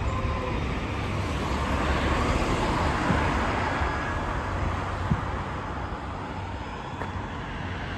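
Street traffic: a single-deck bus driving off along the road and a car passing close by. The tyre and engine noise swells about two seconds in, then eases off.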